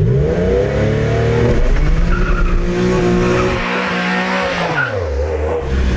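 1999 Porsche 911 (996) doing a burnout: the flat-six revs up, holds high while the rear tyres spin and squeal, then drops back toward idle near the end.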